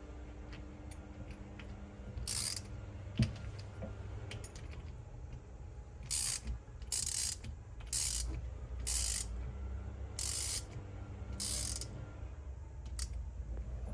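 A hand ratchet wrench being worked in short back-and-forth strokes, about seven ratcheting runs with most of them coming between 6 and 12 seconds in, while a turbocharger is unbolted for disassembly. A steady low hum runs underneath.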